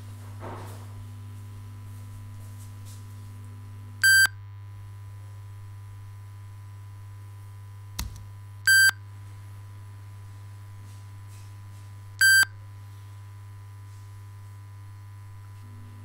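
Three loud, short electronic beeps at the same pitch, a few seconds apart, over a steady low electrical hum. A single click comes just before the second beep.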